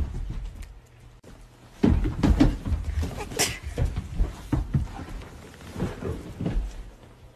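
Scuffling and low thuds of huskies rough-housing with a person on a rug, a dense run of bumps and knocks starting about two seconds in.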